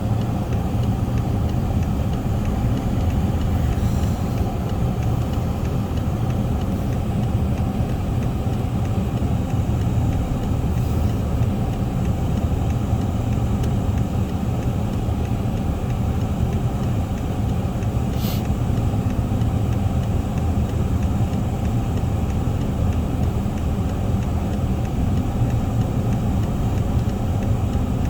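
Steady low rumble with no break, with one faint click about eighteen seconds in.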